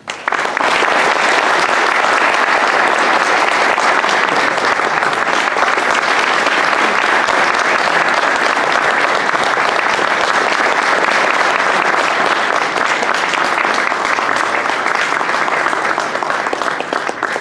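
Audience applauding, a dense steady clapping that starts abruptly and tapers off near the end.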